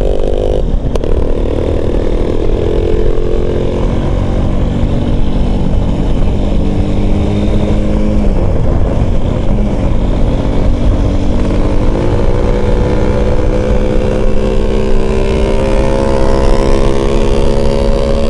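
Motorcycle engine running flat out at road speed under heavy wind rumble on the microphone. Its pitch dips about eight seconds in, then climbs slowly through the second half as the bike accelerates.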